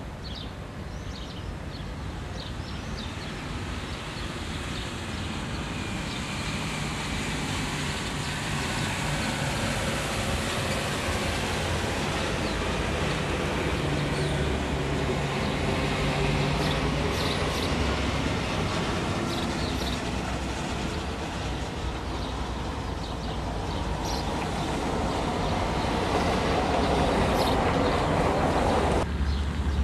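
A steady mechanical rumble with a low hum, growing gradually louder.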